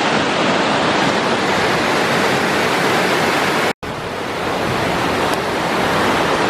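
Waterfall pouring close by: a steady rush of falling water. It drops out for an instant a little under four seconds in, then comes back slightly quieter and builds up again.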